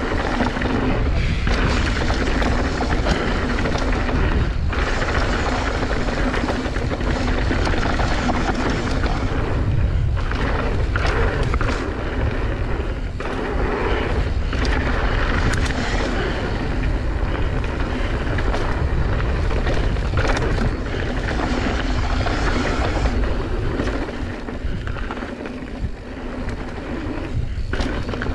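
Wind rushing and buffeting over the microphone, with rumble and rattle from riding fast over a rough trail.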